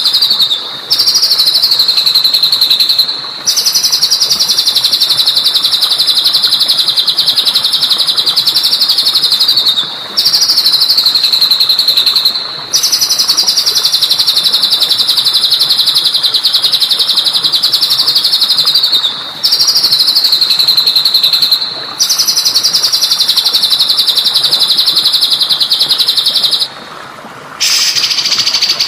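A songbird singing long, very fast, high trills, each lasting several seconds and dropping slightly in pitch at its end, with short pauses between them. A faint steady hiss runs underneath.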